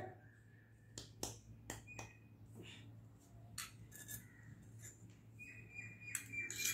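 Faint, scattered clinks and taps of a small steel cup and spoon against miniature terracotta clay pots while flour is tipped and spooned in, about eight light knocks in all.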